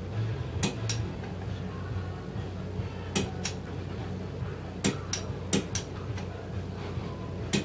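Click-type torque wrench clicking as the main bearing cap bolts on a Nissan KA24DE block reach torque: sharp clicks, mostly in quick pairs, about every one to two seconds, over a low steady hum.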